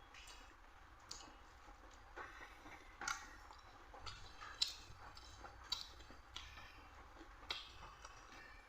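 Mouth sounds of someone eating rice and dal: chewing with scattered short, wet clicks and lip smacks, irregular and fairly quiet.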